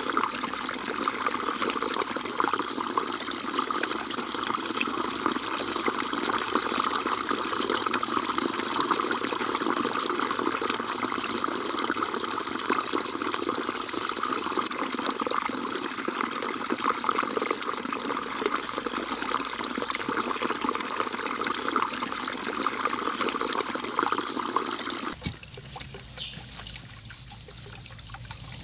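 Small artificial waterfall trickling and splashing steadily into a fish pond. It cuts off abruptly about 25 seconds in, leaving a quieter background with a thin steady high tone.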